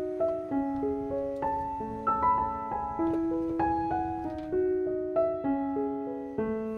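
Background piano music: a gentle melody of single notes over slower held bass notes.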